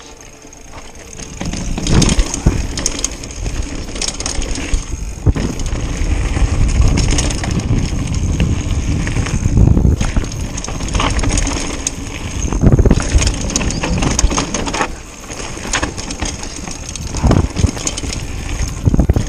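Mountain bike riding fast down a rough dirt and gravel trail: tyres rumbling over the ground, with many sharp knocks and rattles as the bike goes over rocks and bumps, and wind buffeting the body-mounted camera's microphone. The noise builds about a second in.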